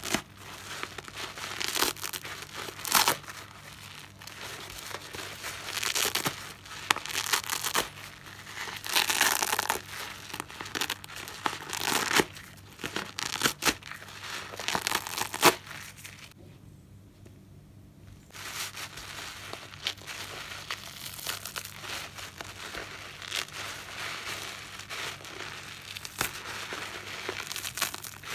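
Soap-soaked car sponge being squeezed and ripped apart by hand: wet, crackling squelches of lather and sponge with sharp tearing snaps, coming in irregular bursts. A short lull falls a little past halfway before the squeezing picks up again.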